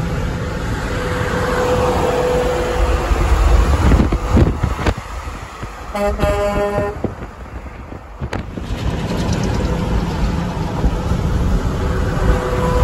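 Pair of Hadley H02001B air horns on a Mack CXU613 tractor blowing one short blast of about a second, over steady highway road noise.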